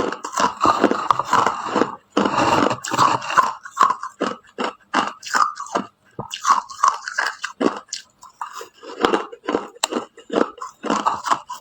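A person biting and chewing ice close to the microphone. Dense, continuous crunching in the first few seconds gives way to separate crunching chews at about three a second.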